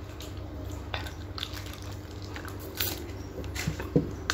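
Mouth sounds of eating an ice-cream bar on a stick: scattered short sucking, lip and biting noises.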